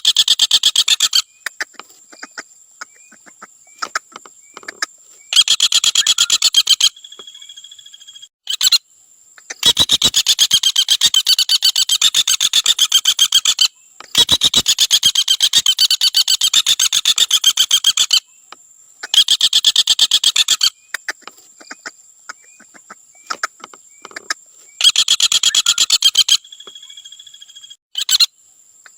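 Common flameback woodpecker giving its rapid rattling call. Runs of fast, even notes last one to four seconds and repeat several times, with softer single notes in the gaps. A thin steady high tone runs underneath.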